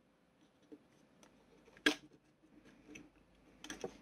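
Small hand screwdriver turning a screw into a model kit's saucer panel: faint scraping and ticking, one sharp click about two seconds in, and a cluster of clicks near the end.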